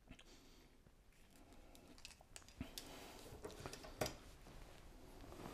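Faint handling sounds of a small clip-on phone conversion lens being turned in the fingers: light rustling with a few small clicks, the sharpest about four seconds in.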